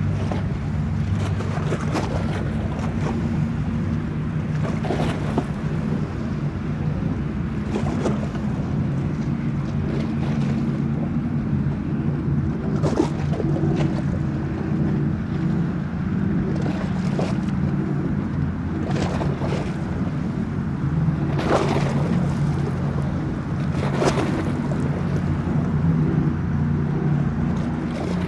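Motorboat engine running as a steady low drone, with choppy water splashing in short sharp bursts and wind buffeting the microphone.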